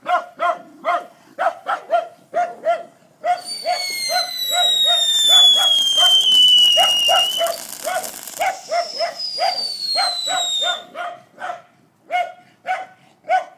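A dog barking over and over, about two or three barks a second. A little over three seconds in, a ground firework goes off and runs for about eight seconds, hissing, with several whistles sliding down in pitch.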